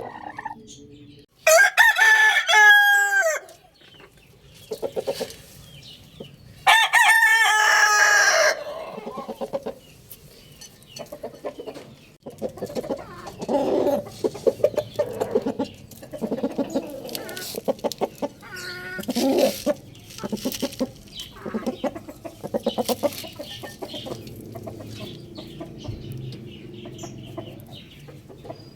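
Rooster crowing twice, each crow about two seconds long, then chickens clucking in rapid low pulses for the rest of the time.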